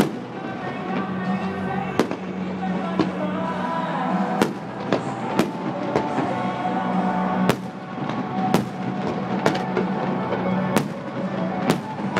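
Fireworks display going off: about a dozen sharp bangs of exploding shells, roughly one a second at uneven spacing, recorded through a phone's microphone.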